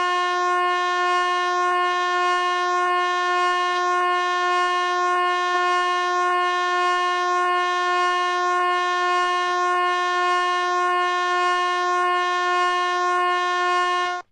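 Emergency alert attention tone: one steady, unchanging tone that cuts off abruptly near the end.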